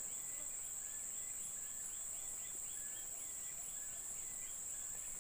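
Insects buzzing steadily at a high pitch, with a fainter chirp repeating about four times a second.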